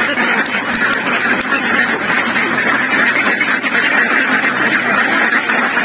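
A large flock of domestic ducks quacking all together in a steady, unbroken din.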